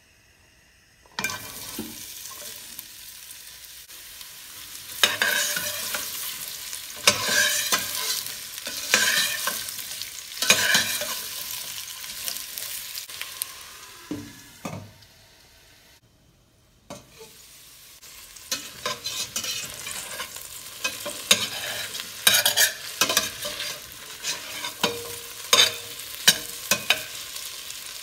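Potato strips in hot oil in a stainless steel pot, sizzling, starting suddenly about a second in as they go into the oil. A spoon stirs them, with scrapes against the pot every second or two. The sizzling breaks off briefly past the middle, then returns with more stirring.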